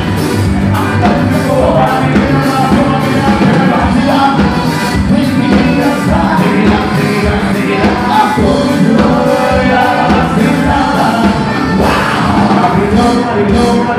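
Live band playing with singing over a steady drum beat, with bass guitar and a horn section of saxophone and trumpet.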